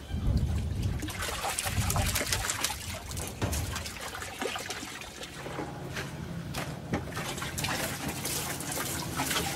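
Water pouring from a hose into a concrete water trough, a continuous trickling hiss.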